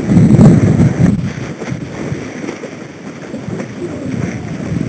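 Wind rumbling on the microphone aboard a sailing boat under way, loud for the first second and then easing to a quieter rush.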